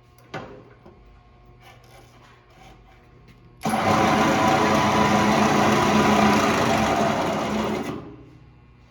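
A click, then about three seconds later a Millport milling machine's motor and spindle start abruptly, run steadily with a low hum for about four seconds, and then shut off and wind down.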